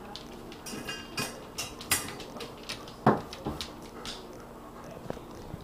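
Samoyed's claws clicking on a tile floor and knocking at its empty stainless steel food bowl, a string of irregular clicks and knocks with one louder knock about three seconds in.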